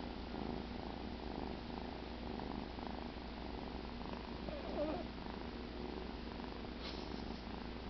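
Domestic cat purring steadily while asleep, with a brief wavering higher note about halfway through.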